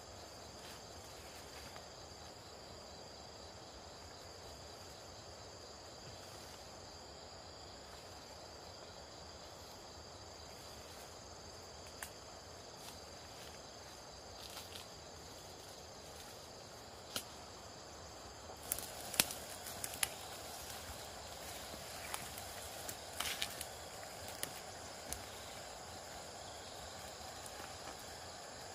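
Steady chorus of insects trilling at a constant high pitch, with scattered sharp clicks and knocks in the second half.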